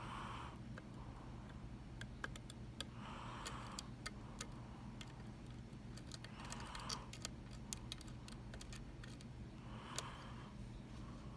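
Faint, irregular light clicks of a lock pick and tension tool working the pins inside a Mul-T-Lock MT5 cylinder, with a soft rushing sound about every three seconds.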